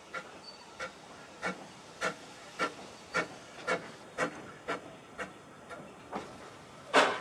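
Vale of Rheidol narrow-gauge steam locomotives Nos. 7 and 8, 2-6-2 tank engines, double-heading a train as it pulls away slowly: sharp chimney exhaust beats, just under two a second and gradually quickening. A much louder rush of sound near the end.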